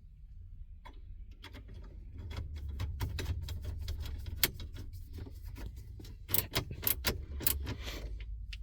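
Irregular metallic clicks and rattles of the stereo's metal mounting cage being handled and fitted back into the dashboard, over a low steady rumble. The sharpest clicks come about halfway through and in a cluster near the end.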